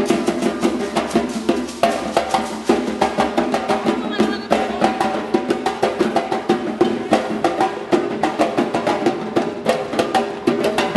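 A drum ensemble playing a fast, steady rhythm, with several loud strikes a second and no break.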